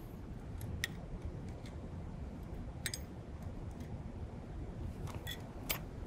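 A few light metallic clicks as the wire stay and washers are handled on the axle end of a Brompton folding bike's front hub, over a low steady background noise.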